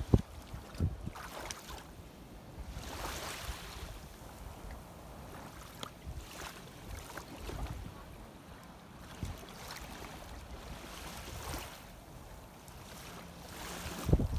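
Wind buffeting the microphone over shallow seawater washing and splashing, in uneven gusts and swells.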